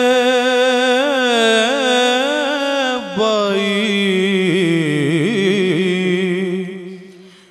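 A man singing a devotional hamd in Urdu in a slow, melismatic style, with long held, ornamented notes. The line breaks briefly about three seconds in, then goes on and fades away near the end.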